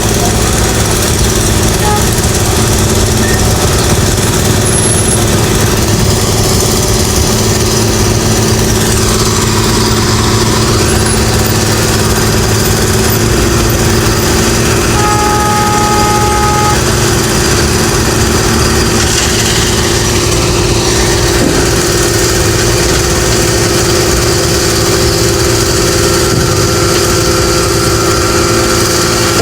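Engine of road construction machinery running steadily, with a short two-note tone lasting under two seconds about halfway through.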